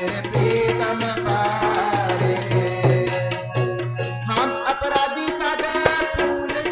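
Sikh kirtan: harmonium and tabla accompanying group singing of a hymn, with a steady percussion rhythm.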